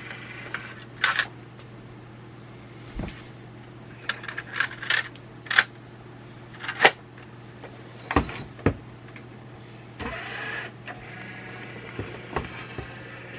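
A series of sharp plastic clicks and clunks from the cassette compartment and buttons of a JVC GR-FX11 VHS-C camcorder being handled, with a short mechanical whirr about ten seconds in. A steady low hum runs underneath.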